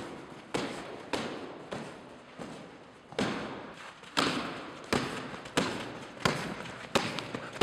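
Hands striking handheld foam blocking pads in a steady alternating rhythm: a dozen or so dull thumps, about one every two-thirds of a second.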